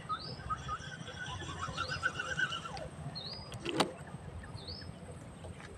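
Birds singing by a reedy lake: a short rising whistle repeated every second or two over runs of quick chirps. About four seconds in there is a single sharp click, under a low rumble of wind or handling on the microphone.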